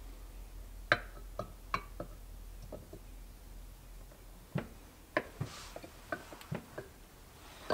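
Scattered light metallic clicks and taps, a dozen or so at uneven intervals, as small steel parts are handled and set into an aluminium ZA50 moped engine case half. A brief faint hiss comes about five and a half seconds in.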